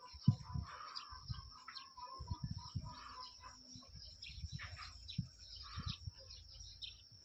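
Small birds chirping here and there. Under them are low bumps and rubbing noises, with a sharp thump just after the start.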